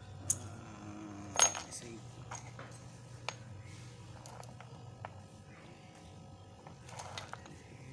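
Light clicks and clinks of small parts being handled on a wooden board: a heat gun's coiled wire heating element and its small insulator strips. The loudest knock comes about a second and a half in, with scattered lighter ticks after it.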